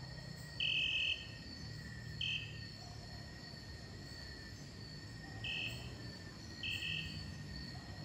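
Short, high-pitched beeps from the NEXTORCH P86 flashlight's electronic whistle, heard from a distance: one longer blast about half a second in, then brief ones at irregular gaps. Steady insect chirring runs underneath.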